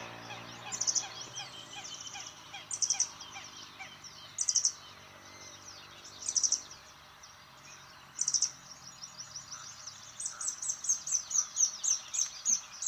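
Soundscape recording in which a motorcycle engine passes and fades away over the first few seconds. Over it a bird repeats a short, high call about every two seconds, and near the end breaks into a fast run of high notes.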